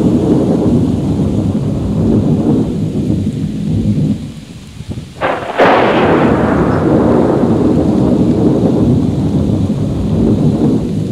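Thunder in a thunderstorm: a continuous low rumble that dies down about four seconds in, then a sharp clap about halfway through, followed by a long rolling rumble.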